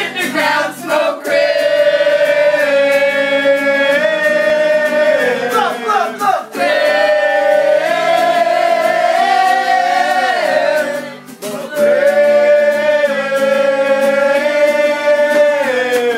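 Voices singing together in long held notes, like a choir: three drawn-out notes of several seconds each, each sliding down in pitch as it ends.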